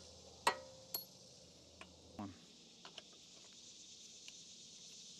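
A few sharp metallic clinks and clicks from a ratchet and socket working the cylinder-head bolts of a Kohler lawn-tractor engine; the loudest, about half a second in, rings briefly. Insects chirr steadily underneath.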